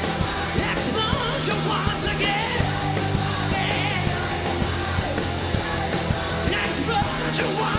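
Live rock band playing loud: electric guitar, drums and keyboards, with yelled and sung vocals.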